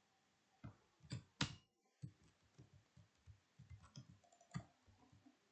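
Faint computer keyboard keystrokes: a few sharper, louder key presses about a second in, then a run of lighter, irregular taps.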